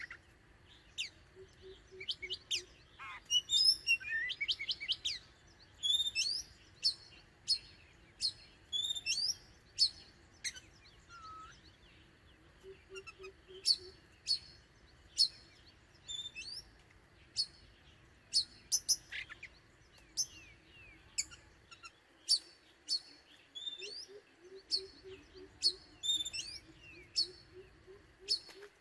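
Oriental magpie-robin singing: a long run of sharp, varied chirps and whistled notes with short gaps between phrases. A low, rapidly repeated note sounds in the background a few times, loudest near the end.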